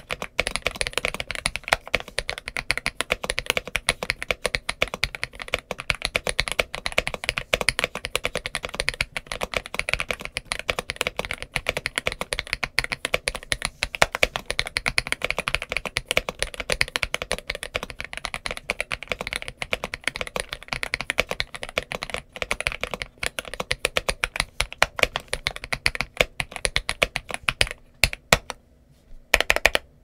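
Fast, continuous typing on a GMK87 tenkeyless mechanical keyboard with stock Leobog Graywood V4 linear switches and Cherry-profile PBT keycaps, a pretty thocky sound with little spring ping. The typing pauses for about a second near the end, then a few keystrokes follow.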